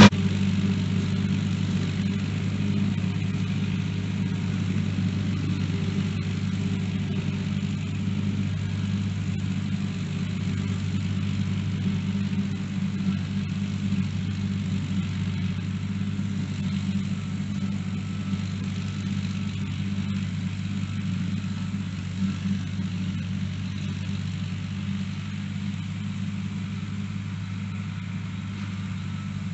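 Old John Deere farm tractor engine running steadily at working speed while driving a bush hog rotary cutter, gradually growing fainter.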